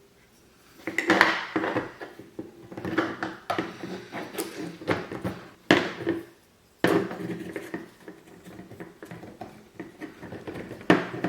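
Handling noise as a lamp and its accessories are unpacked and set up: an irregular run of knocks, taps and rustles of small hard objects being picked up and set down, starting about a second in, with a few sharp clicks.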